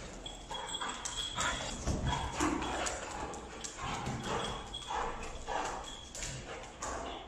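Two large dogs playing rough over a silicone suction-cup toy on a tile floor: claws clicking and scrabbling on the hard tiles in irregular taps and scuffles, with the toy knocking about.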